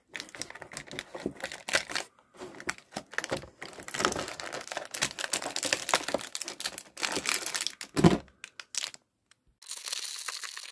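A small clear plastic bag of Lego pieces crinkling as it is handled and torn open, with one heavier thump about eight seconds in.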